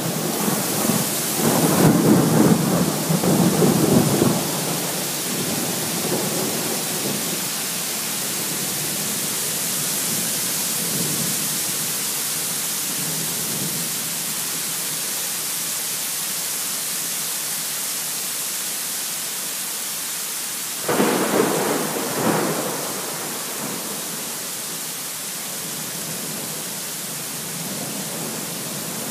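Heavy rain pouring steadily, a constant hiss. Thunder rumbles at the start and dies away over several seconds, and about 21 seconds in a sudden thunderclap strikes with a second crack just after, rumbling briefly before fading back under the rain.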